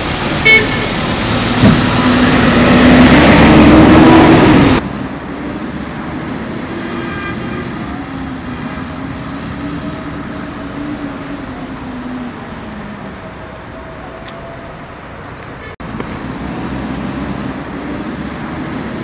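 Coach bus engine running and rising in pitch as the bus pulls away, with road noise and a short pitched blip about half a second in. After about five seconds the sound cuts to a quieter, distant engine and traffic noise as more buses drive off.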